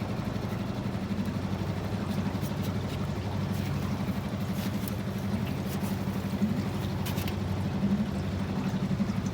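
Outboard motor on a small aluminium jon boat running steadily at low speed, a continuous low engine drone.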